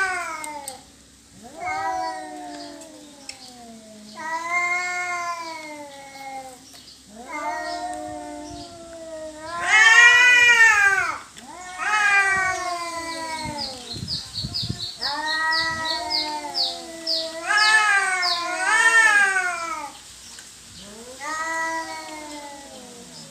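Cats caterwauling in a territorial standoff: long, drawn-out yowls that rise and fall in pitch, one after another, the loudest about ten seconds in.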